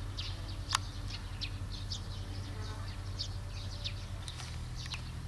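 Small birds chirping in short, repeated high notes, with a single sharp click about a second in and a low steady rumble underneath.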